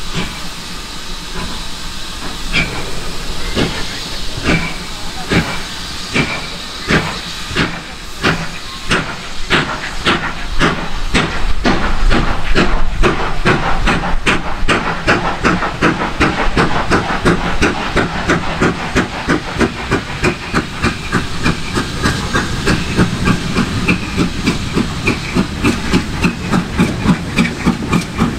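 GWR Modified Hall 4-6-0 steam locomotive No. 7903 'Foremarke Hall' pulling away from a standstill. Its exhaust beats start slow, about one every 0.7 s, and quicken steadily to about two and a half a second, over a constant hiss of escaping steam.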